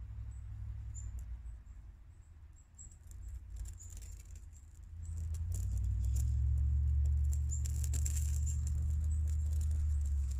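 Homemade paraffin-wax and pencil-shaving fire puck burning with a small flame, giving faint scratchy crackles and ticks. Under it a low wind rumble on the microphone swells about halfway through and becomes the loudest sound.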